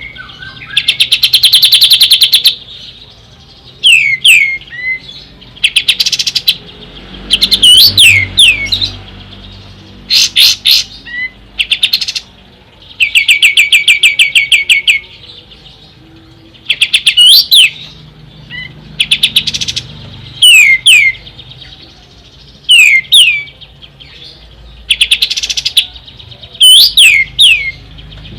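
Kapas tembak songbird singing loudly in phrases every few seconds. Fast chattering trills of rapid repeated notes alternate with sharp, falling whistled notes.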